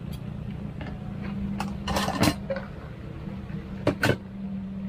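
A metal spatula clinking and knocking against an aluminium cooking pot while the food in it is stirred: a cluster of clinks about two seconds in and two more near the end.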